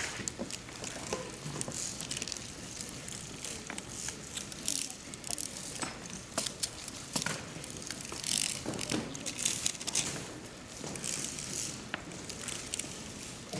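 Many small abacuses being worked at once: a dense, irregular clatter of beads clicking as a room of children calculate.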